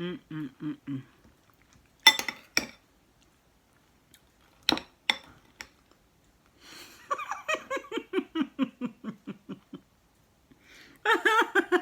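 A person laughing in a long run of quick, falling 'ha-ha' pulses, with a few sharp clinks of cutlery or a dish earlier on.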